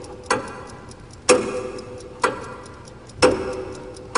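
Clock ticking sound effect: sharp ticks about once a second, alternating stronger and weaker, each with a short ringing tone, and fainter quick ticks in between.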